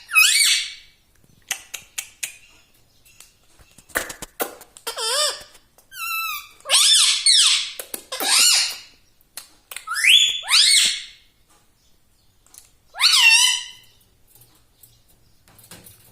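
Indian ringneck parrot calling in about half a dozen short, high, squeaky bursts whose pitch sweeps up and down, with quiet gaps between them.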